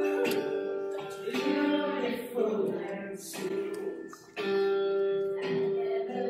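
Background music: a song with held sung notes over guitar.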